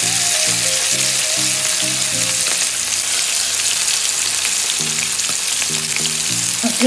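Marinated chicken pieces sizzling and frying in hot oil in a nonstick frying pan as more pieces are added, a loud steady sizzle. Background music notes play underneath.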